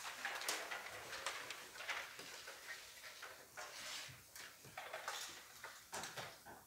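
Faint scattered clicks, knocks and rustles in a quiet band room with no music playing, as seated players shift and handle their instruments.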